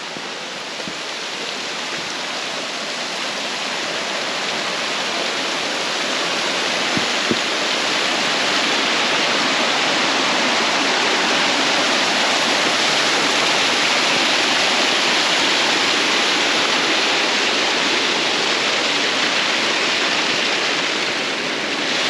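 The Gütersteiner waterfall rushing with a dense, steady roar of falling water, running full. The rushing grows louder over the first ten seconds or so, then holds.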